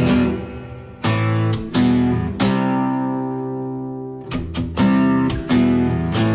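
Background music: an acoustic guitar strumming chords, the first few struck singly and left to ring out, then quicker strumming from about four seconds in.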